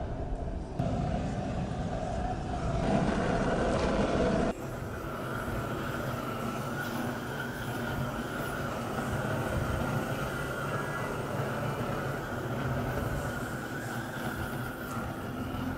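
Long-wand propane torch burning with a steady rushing noise as its flame plays over wood. The noise drops and changes character abruptly about four and a half seconds in.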